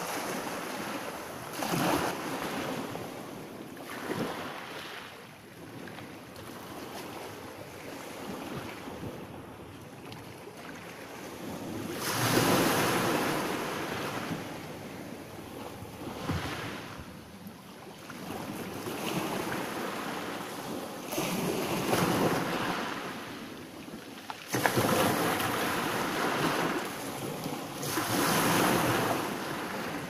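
Small sea waves breaking on a pebble beach and washing up over the stones, a steady hiss that swells and falls every few seconds. The two strongest breaks come in suddenly, about halfway through and again past the three-quarter mark.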